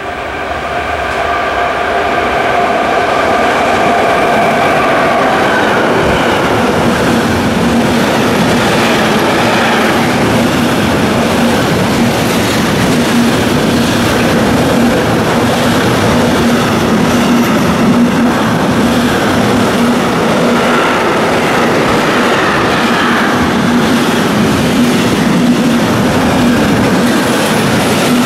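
A train passing loudly, the rail noise building over the first two seconds and holding steady for about 25 seconds before falling away near the end. A set of steady tones fades out about five seconds in, and a steady low hum runs under the noise.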